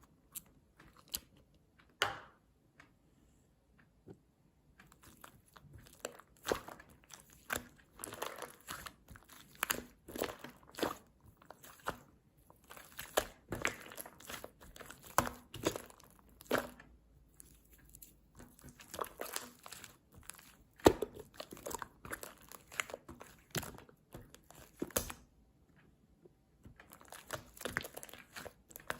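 White slime mixed with shaving foam being squeezed and kneaded by hand, giving irregular clusters of sticky crackling pops and squishes. It starts with a few scattered clicks, grows dense, and pauses briefly near the end before resuming.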